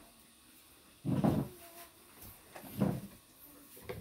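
Two dull scraping bumps about a second and a half apart as a plastic chair is moved and sat on at a table.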